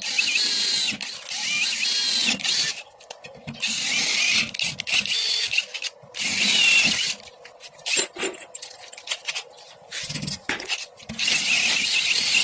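A power tool worked on metal in repeated bursts of about one to three seconds, with short gaps between, its pitch wavering under load.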